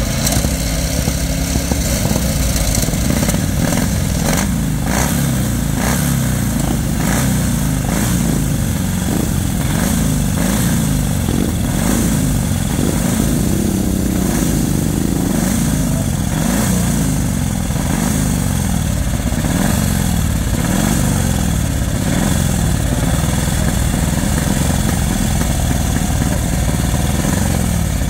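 Vintage single-seat racing car's exposed engine running at idle, its pitch rising and falling with light throttle blips.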